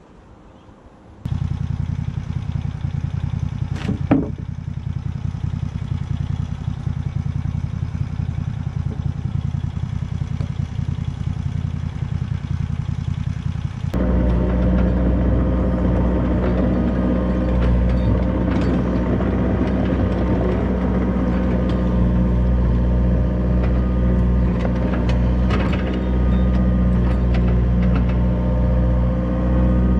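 An engine starts running suddenly just after the start and runs steadily. About halfway through it gives way abruptly to a louder, deeper engine sound that runs steadily to the end.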